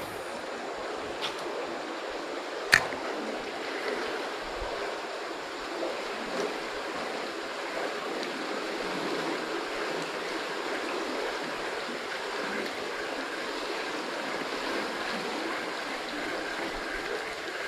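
River current running over a shallow riffle: a steady rushing of flowing water. A single sharp click stands out about three seconds in.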